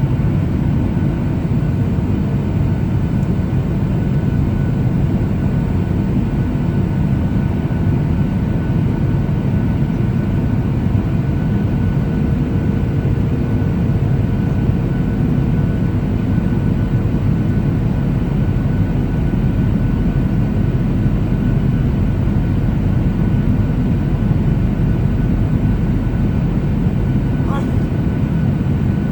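Boeing 737-800 cabin noise in flight: the CFM56 turbofans and airflow make a steady low roar with a few faint steady tones, unchanging throughout.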